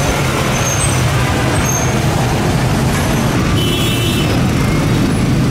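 Steady motor traffic: engines running with road noise, and a brief cluster of high-pitched tones a little past the middle.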